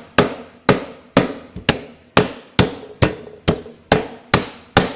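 Glitter slime being pressed down and slapped with the hand over and over, a sharp slap about twice a second in a steady rhythm.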